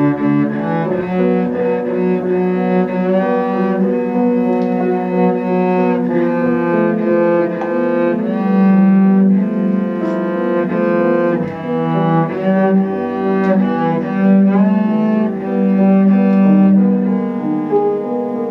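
Cello and piano playing a classical cello sonata: the cello bows a melody of long held notes over piano accompaniment.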